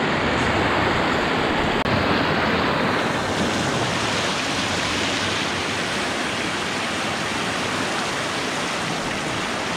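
Muddy floodwater rushing over a flooded concrete crossing and churning down its edge: a loud, steady rush of water that grows brighter about three seconds in.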